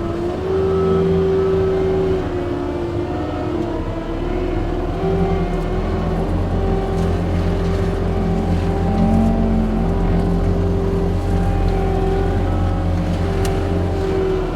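Hydraulic forestry mulcher head running on a compact machine: a steady high whine that wavers a little in pitch over a continuous diesel engine drone.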